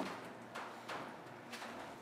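A few faint, scattered knocks and clicks, about three, over a quiet room hiss.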